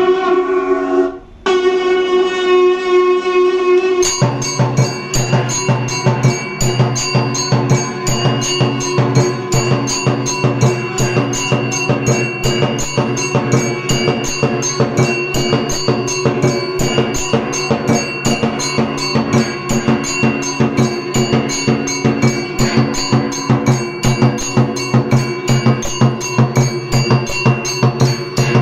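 Electric temple aarti machine playing. Its conch (shankh) sounds a long steady note with a short break about a second in. About four seconds in, the mechanical strikers start on the steel nagara drum, bells and jhalar cymbals, keeping up a fast, even beat with the bells ringing over it.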